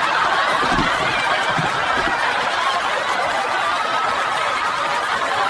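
Several people laughing together in a steady, continuous wash of laughter that cuts off abruptly at the end.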